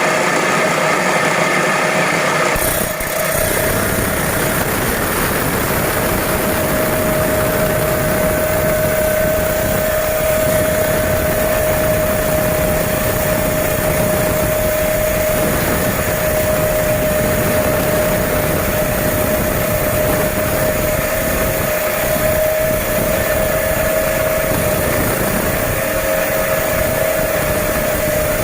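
Agate stone-cutting saw running steadily: a motor-driven blade with a constant whine over a dense grinding noise, fuller and lower from about two and a half seconds in.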